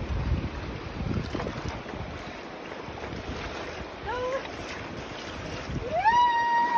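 Wind buffeting the microphone over water sloshing and splashing at the rocky edge as a released sturgeon swims away. About four seconds in there is a short high cry, and near the end a louder, longer one that rises, holds steady for most of a second and falls away.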